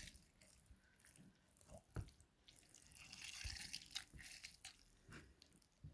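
Near silence with faint kitchen handling: a soft knock about two seconds in and a brief faint trickle of liquid around three to four seconds in.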